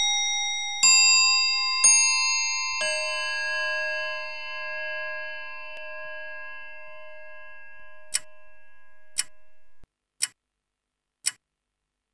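Four bright chime notes struck one after another in the first three seconds, each ringing on and overlapping the others as they slowly fade. Near the end come four sharp ticks about a second apart, the ticks of a countdown leader running down to zero.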